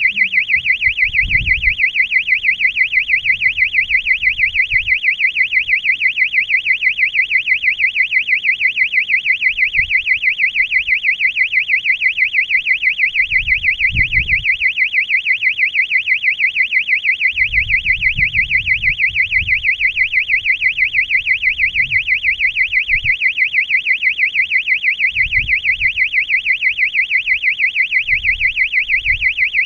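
Electronic warbling siren buzzer sounding continuously, a high tone wobbling quickly and evenly up and down in pitch without a break. Low, irregular rumbles come and go underneath, loudest about 1.5 and 14 seconds in and again around 18 seconds.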